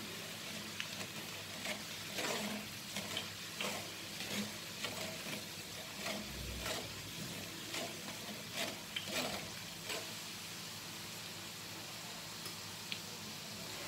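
Moong dal deep-frying in hot oil inside a steel mesh strainer: a steady sizzle, with a metal spoon stirring and scraping against the mesh in many short clicks that stop about ten seconds in. The dal is nearly fried through, when its bubbling starts to die down.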